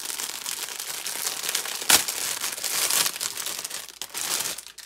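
Clear plastic packaging crinkling and crackling as it is handled and pulled off a dog toy, with one sharp, loud crack about two seconds in.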